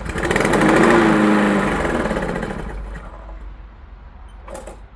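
Lawn mower's small engine catching on a pull of the recoil starter and running for about two seconds, then slowing with falling pitch and dying out. The engine won't stay running, which the owner takes for a problem deep in the engine.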